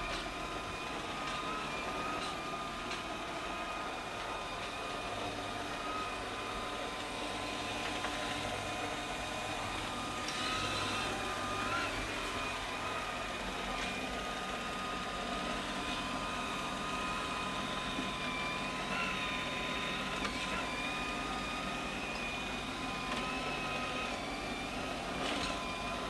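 LG Hom-Bot robot vacuum running: a steady whir of its suction fan and brushes with a high whine over it, the whine wavering slightly in pitch now and then, with a few faint clicks.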